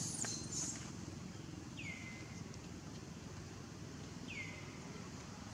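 Two short high animal calls, about two and a half seconds apart, each sliding down in pitch and then holding briefly, over a faint steady outdoor hiss.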